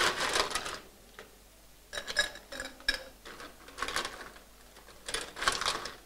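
Ice cubes clattering and clinking as they are scooped from a stainless steel ice bucket and dropped into a highball glass, in about four bursts.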